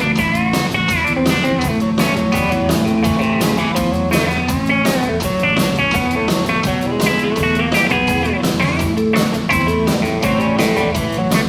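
Scheltema Sherwood Classic guitar played as lead over a backing track with a steady drum beat, with notes bent up and down.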